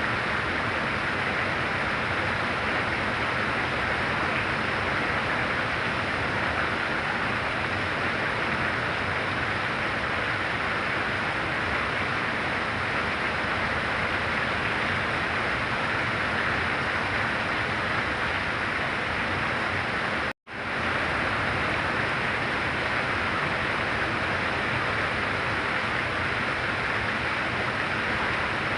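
Heavy rain falling steadily in a dense, even hiss. It cuts out completely for a split second about two-thirds of the way through, then comes straight back.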